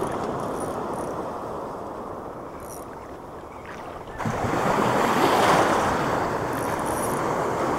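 Sea surf washing up the shore, with a wave rushing in much louder about four seconds in.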